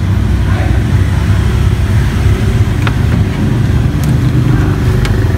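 Steady low rumble of a running engine, with a few faint clicks near the end.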